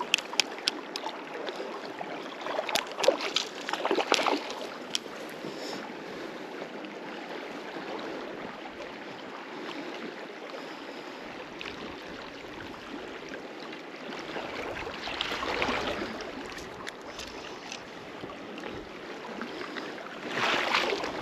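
Steady rush of river water with wind on the microphone. Scattered sharp clicks and short louder bursts come in the first few seconds, again about two-thirds of the way through, and near the end.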